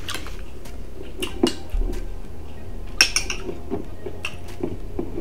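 Metal spoons clinking and scraping against glass serving bowls and plates as food is dished up, a run of irregular small taps with the sharpest clink about three seconds in. A steady low hum lies underneath.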